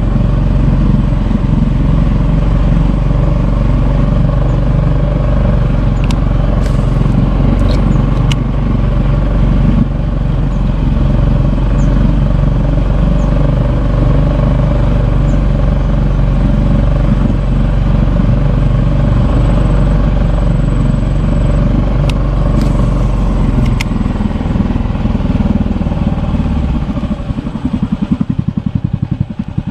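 Small single-cylinder engine running steadily, then throttling down near the end until its separate firing strokes can be heard.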